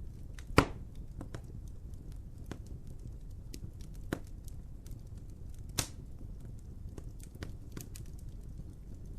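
Wood fire crackling: scattered sharp pops and snaps over a steady low rumble, the loudest pop about half a second in.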